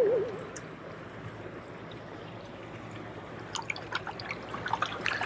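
Small waves lapping and trickling among shoreline rocks, with irregular little splashes and drips that grow busier about halfway through.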